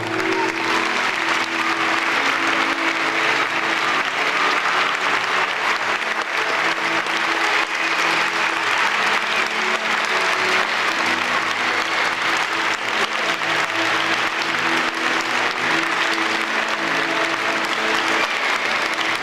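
Many people applauding, a dense, steady clapping, with music playing underneath.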